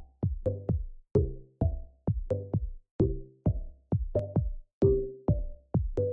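Electronic background music with a steady drum-machine beat, about two beats a second, with short synth notes on the beats.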